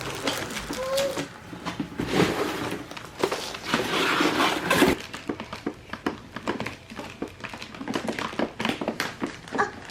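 Small plastic toys being handled: many quick clicks and knocks, with a short voice-like sound about a second in.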